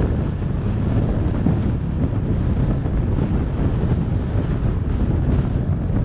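Steady rumble of wind buffeting the microphone while moving along a road.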